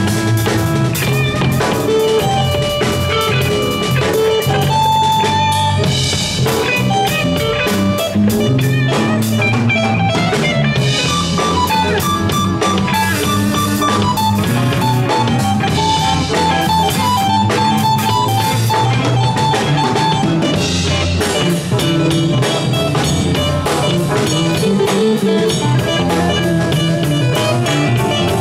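Live band playing an instrumental piece: electric guitar lines over a steadily played drum kit.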